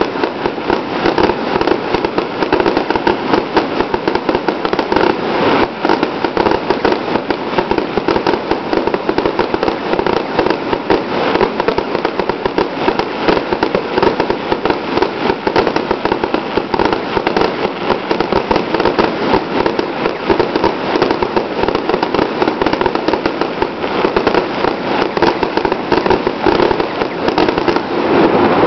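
Public firework display at full intensity: a dense, unbroken barrage of crackling and popping bursts.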